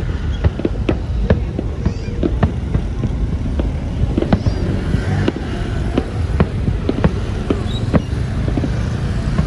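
Fireworks popping in quick, irregular succession, several sharp bangs a second, over a steady low rumble.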